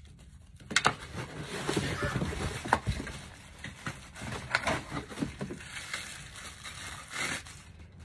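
Plastic packaging bags rustling and crinkling as they are handled and pulled from a cardboard box with foam inserts, in irregular bursts with a few sharp crackles starting about a second in.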